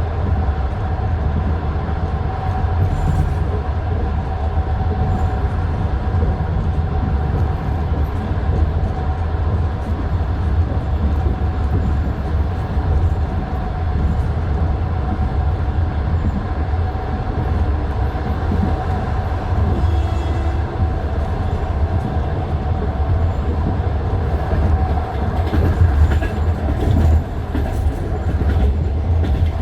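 Passenger train wheels running over jointed rail track, heard from inside the carriage: a steady heavy rumble with wheel knocks at the rail joints and a steady hum.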